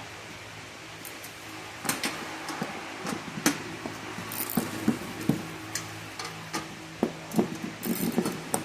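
Irregular clicks, taps and knocks of metal parts and tools being handled while working on a hydraulic hose crimper, over a steady low hum.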